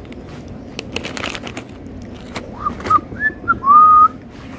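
Crinkling of a clear plastic bag of zip ties being handled, followed near the end by a short whistled phrase: a few quick chirp-like notes, then one longer note that slides up and holds.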